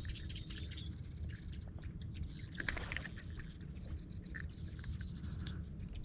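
Faint bird chirps and scattered small clicks over a low steady rumble.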